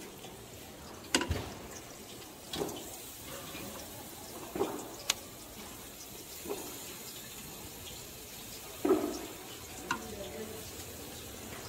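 Sauce-basted chicken skewers sizzling on a hot charcoal grill: a steady hiss, with a short louder burst or sharp click every second or two.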